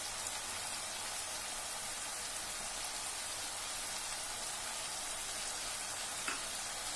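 Spinach and mixed vegetables sizzling gently in a kadai on the gas flame, a steady soft hiss with a couple of faint ticks, as the remaining liquid cooks off.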